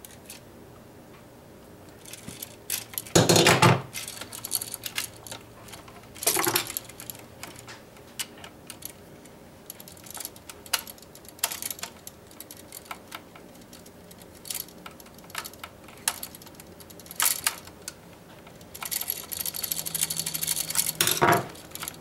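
Wire cutters and a screwdriver worked on stiff copper electrical wiring at a receptacle: scattered small metallic clicks and clinks, a few louder knocks, and a denser run of clicking near the end.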